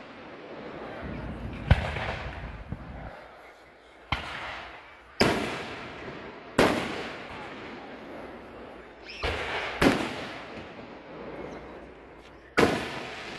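A fireworks display with aerial shells bursting: seven sharp bangs at uneven gaps of about half a second to three seconds. Each bang is followed by a rolling echo that dies away.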